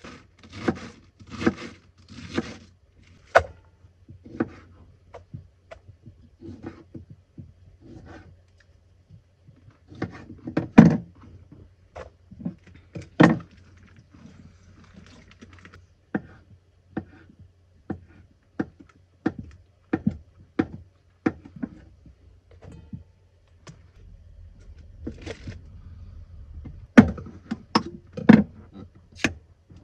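Salad preparation on a wooden cutting board: irregular knife knocks and chopping against the board, with louder thunks as things are set down on the counter.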